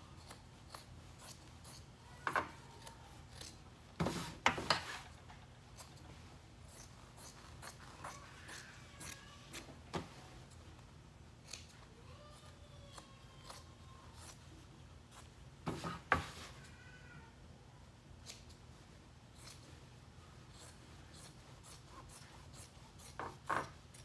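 Fabric scissors snipping, trimming the seam allowance and cutting the corners diagonally on a sewn fabric pocket. The snips are scattered and spaced apart, the sharpest around four and sixteen seconds in.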